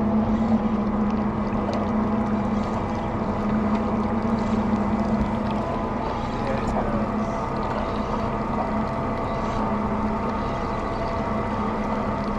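Boat's outboard motor idling with a steady, even hum.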